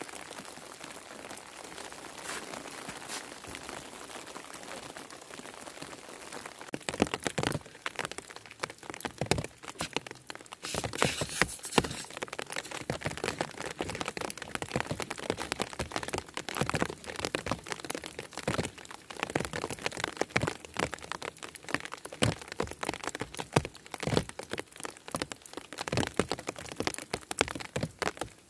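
Falling snow striking a surface: an even hiss at first, then from about seven seconds in a dense, irregular run of small ticks and taps.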